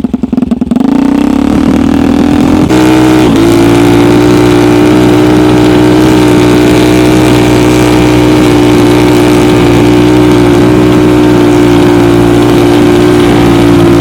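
Homemade snowmobile's engine revving up over the first three seconds, then running steadily at high revs under load on a climb.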